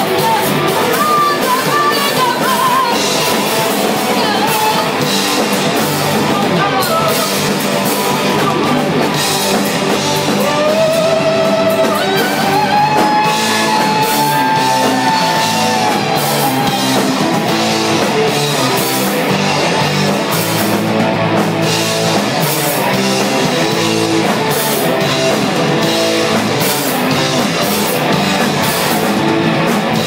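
Rock band playing live: singing over electric guitar and a drum kit, loud and steady throughout.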